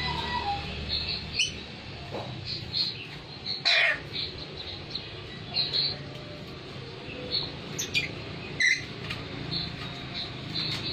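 Butcherbird ('jagal papua') calling: scattered short, sharp chirps, with a louder call about four seconds in and two more near the end.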